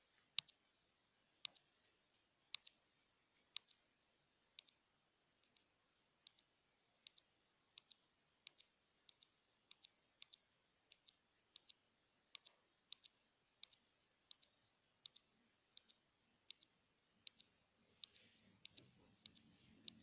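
Faint, sharp clicks of a phone's touchscreen being tapped over and over to spin an app's roulette wheel, about one to two a second and sometimes in quick pairs.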